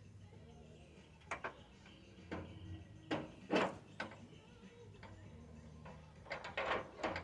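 Metal tools and mower parts knocking and clattering as they are handled: short knocks about a second in and about two seconds in, a louder clatter a little past the middle, and a quick cluster near the end, over a low steady hum.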